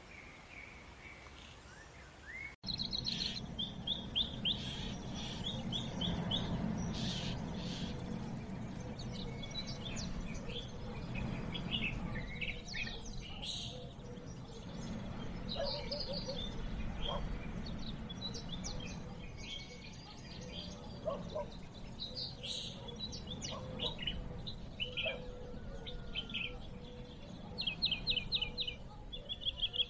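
Birds chirping and trilling over a steady low background noise, the calls starting abruptly a few seconds in.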